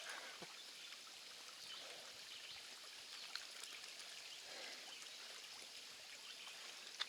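Faint, steady trickle of a small runoff stream, with a few faint clicks and one sharper click near the end.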